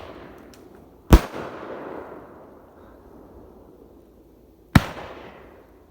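Two loud bangs from a 9-shot, 500-gram consumer fireworks cake, about three and a half seconds apart, each trailing off slowly.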